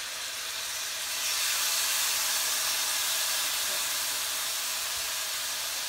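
Steaks searing in a pan of hot oil on high heat: a steady sizzle that grows louder about a second in.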